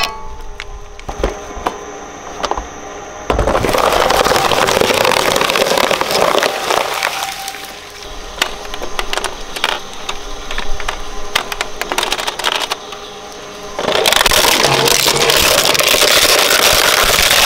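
Twin-shaft shredder's steel cutters cracking and crunching hard plastic toys. There are sharp cracks at first, then a loud, dense crunching for several seconds, scattered cracks, and loud crunching again near the end as a larger plastic toy is fed in.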